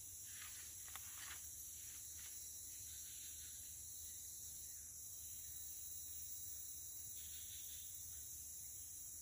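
Steady high-pitched drone of forest insects. Footsteps crunch on wet leaf litter for the first two seconds or so, then stop.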